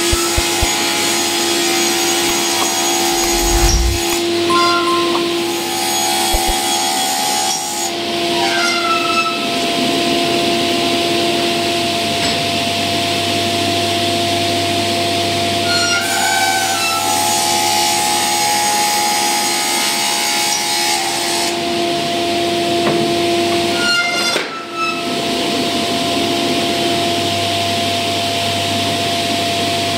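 Sliding-table panel saw running and cutting through a large laminated panel: a steady blade whine under a rough, continuous cutting noise. There is a brief dip about 24 seconds in.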